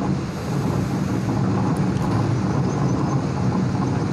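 A steady low engine drone, like a motor vehicle or generator running close by.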